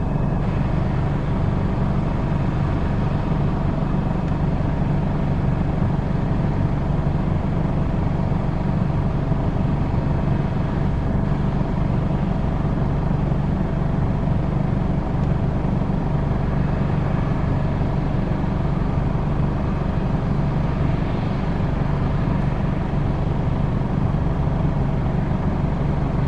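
Fendt Ideal 9T combine harvester running steadily: a constant deep engine drone with several steady higher tones from its machinery.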